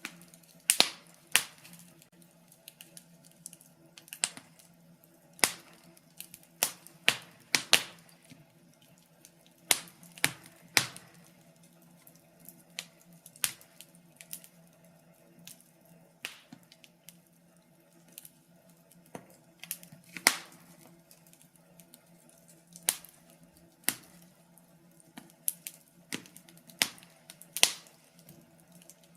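Wood fire in a fireplace crackling: irregular sharp pops and snaps, some in quick pairs, over a faint steady low hum.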